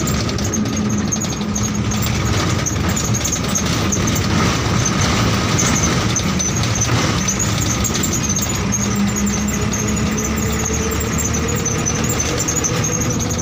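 Bus engine and road noise heard from inside the cabin of a moving bus: a steady rumble with a faint high whine running over it.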